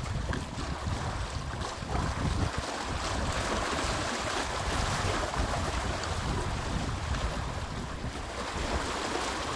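Sea surf washing onto the beach, a steady hiss, with wind buffeting the microphone in low rumbling gusts.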